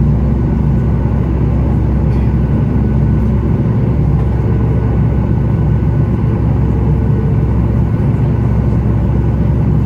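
Steady cabin rumble and hum of a Boeing 737 MAX 8 taxiing at low power, its CFM LEAP-1B engines heard from inside the cabin.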